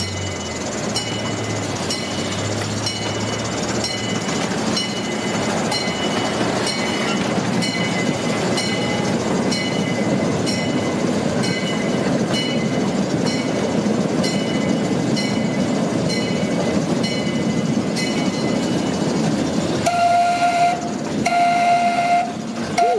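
Zoo miniature train running along the track with a steady rumble and a regular ringing clang about once a second. Near the end the locomotive sounds its horn in blasts, two full ones and a third starting.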